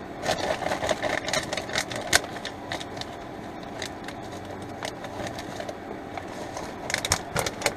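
Plastic bag of meatless crumbles crinkling and rustling as the crumbles are shaken out into a pan, with small rattling clicks. The crackle comes in spells, mostly in the first few seconds and again near the end, over a steady mechanical hum.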